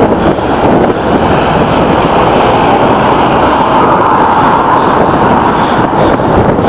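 Loud, steady rushing noise of wind buffeting the microphone, mixed with road noise, from moving fast along a street.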